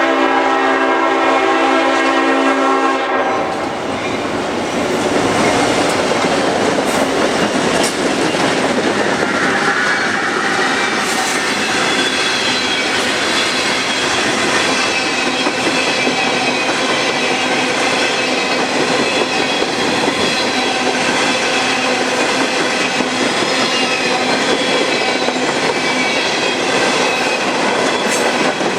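Leslie RS5T five-chime air horn on an EMD GP38-2 diesel locomotive, sounding one chord blast about three seconds long. It gives way to the steady loud rumble and clatter of the passing locomotives and freight cars, wheels clicking over the rail joints.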